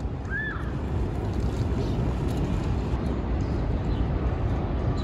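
Steady low rumble of outdoor city-park ambience. One short chirp rises and falls about half a second in.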